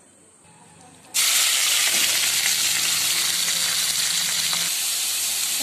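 Raw chicken pieces hitting hot vegetable oil in a kadai: after a near-quiet start, a loud, steady sizzle begins suddenly about a second in as the meat starts frying.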